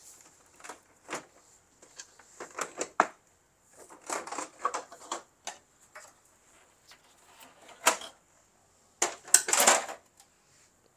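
Plastic top cover of an Epson L805 printer being worked loose and lifted off: irregular clicks and knocks of plastic on plastic, with a denser clatter near the end.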